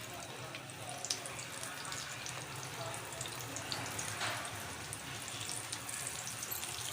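Rice-and-potato batter pieces deep-frying in hot oil: a steady sizzle with many small crackling pops, briefly louder about four seconds in.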